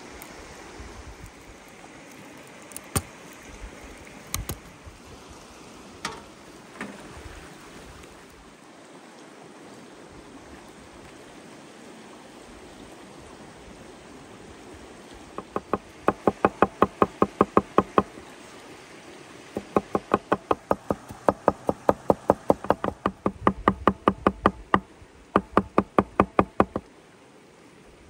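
Cleaver chopping fast on a wooden cutting board, mincing garlic: even knocks about six a second, in four runs with short pauses, starting about halfway through. A river rushes steadily underneath.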